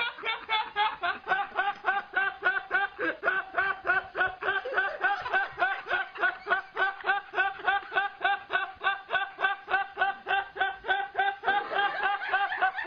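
Laughing sound effect: a high-pitched voice laughing in a fast, even run of short 'hee' pulses, about four a second, without a break.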